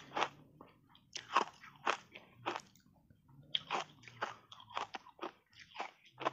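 Close-miked crunching and chewing of a mouthful of hard block ice coated in matcha powder: many sharp crunches in irregular runs, with a short pause about three seconds in.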